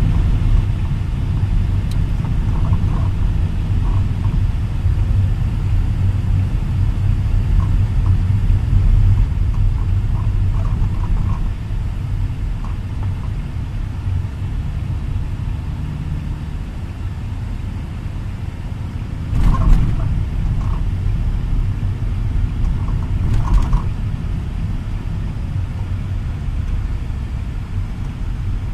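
Car cabin noise while driving: a steady low rumble of engine and tyres on the road, with two brief louder bumps or whooshes in the second half.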